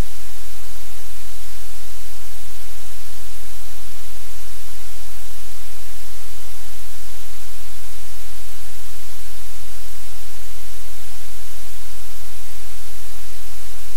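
Steady, loud static-like hiss with a low hum beneath it. It does not change at all.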